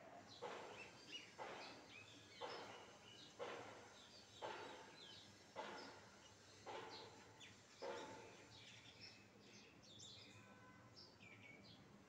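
Rose-ringed parakeet (Indian ringneck) giving harsh squawks about once a second, then, after about eight seconds, softer short chirps and whistles.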